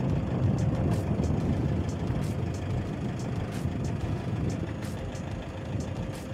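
Car driving along a road, heard from inside the car: a steady low rumble of engine and tyres.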